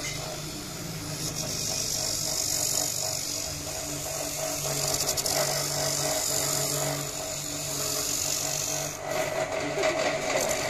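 Small electric motor of a homemade coconut grater running with a steady hum while its spinning grater head scrapes the flesh of a half coconut pressed against it, giving a loud rasping hiss. The scraping hiss drops away near the end while the motor keeps running.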